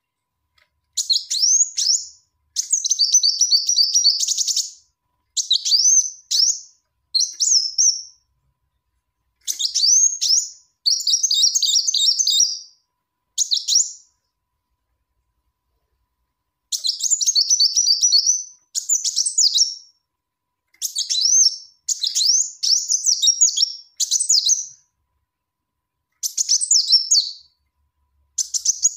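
Female Kolibri Wulung sunbird calling in a lure recording: bursts of high, thin chirps, quick twittering runs and short upward-sweeping notes, repeated about a dozen times with short pauses and one longer pause in the middle. It is a female's call to attract a male.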